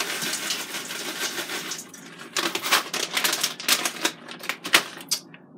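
Plastic bag crinkling and rustling as onion is shaken out of it into a cooker pot, followed from about two and a half seconds in by a run of sharp crackles and clicks.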